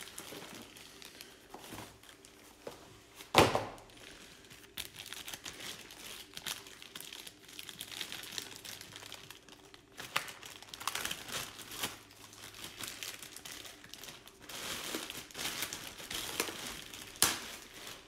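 Plastic bag crinkling and rustling as a tool is unwrapped from it, with cardboard packaging shifting. A single loud knock comes about three and a half seconds in.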